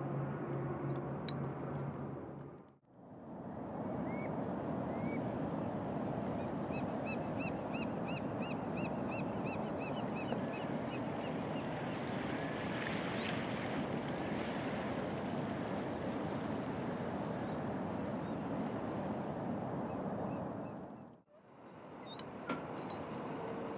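Pigeon guillemots calling: thin, high whistles, one wavering and sliding up then trailing off, with a run of quick repeated notes, over a steady rush of background noise.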